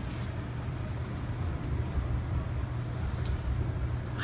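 Room tone: a steady low hum with a faint hiss, broken only by a couple of faint ticks.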